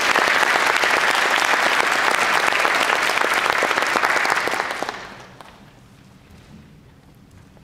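Audience applauding in a concert hall, dying away about five seconds in to quiet room tone.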